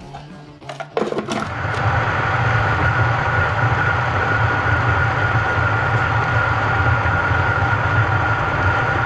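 An electric countertop food processor starts about a second in after a few clicks, then runs steadily with a low hum and a high whine, chopping a crust mixture of dates, pecans and cookies.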